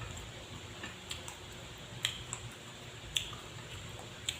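Eating sounds at a meal: scattered soft clicks and smacks of chewing, about eight in a few seconds, with two sharper ones about two and three seconds in.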